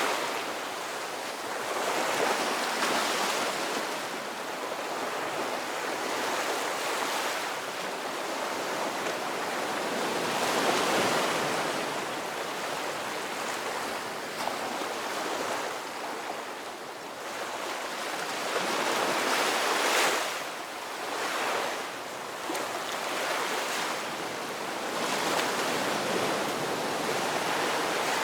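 Ocean surf: waves washing in and breaking one after another, the hiss rising and falling every few seconds.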